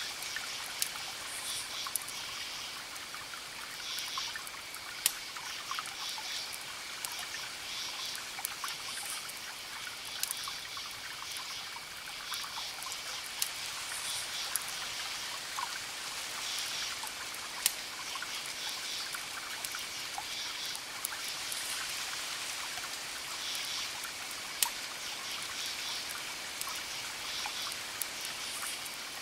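Crackling wood fire, with sharp pops every few seconds over a steady trickling hiss. Faint high chirps repeat in short groups, over a thin steady high tone.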